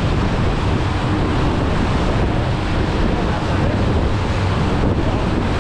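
Steady rush of wind on the microphone and water churning in the wake of a ski boat running at speed, with the boat's engine droning low beneath.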